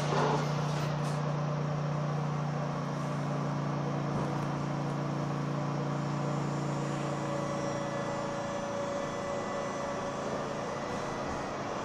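Metrorail train running, with an even rumble and rattle under a low steady hum; the hum weakens about three seconds in and fades out by about eight seconds, while a higher-pitched hum comes in over the later part.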